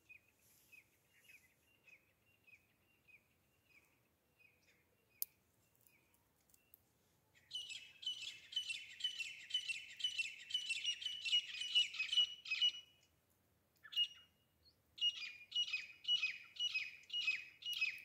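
Grey francolin calling: a faint run of short repeated notes at first, then two loud, fast series of repeated notes, about three a second. The first lasts about five seconds from midway, and the second starts about three seconds before the end.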